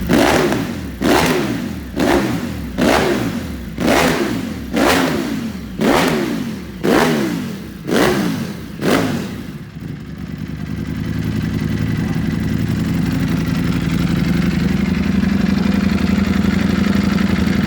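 Ducati Panigale V4 Speciale's V4 engine, breathing through an Akrapovic full titanium racing exhaust, blipped about ten times in quick succession, roughly once a second. Each rev snaps up and falls back. It then settles into a steady idle.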